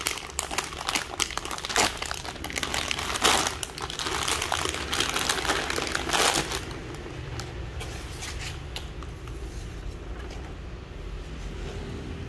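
Clear plastic bag holding bolts and tape rolls crinkling as it is picked up and handled, dense and loud for the first six seconds or so, then dropping to soft, scattered rustles.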